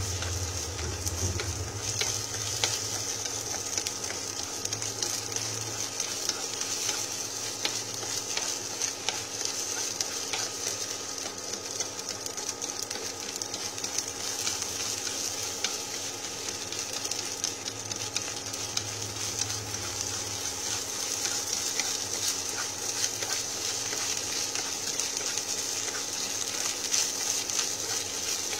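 Egg-coated rice sizzling in garlic oil in a frying pan while it is stirred and broken up with chopsticks, with frequent light clicks and scrapes of the chopsticks against the pan.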